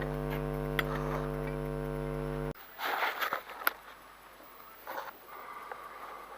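Steady electrical mains hum, a low buzz with many even overtones, that cuts off suddenly about two and a half seconds in. After it come a few faint clinks and rustles of handling.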